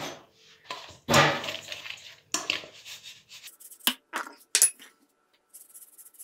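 Stainless steel mixing bowl clanking and scraping several times as dry ingredients (sugar, semolina and flour) are mixed in it, the loudest knock about a second in. Near the end a soft high hiss as the powder is swirled around the bowl.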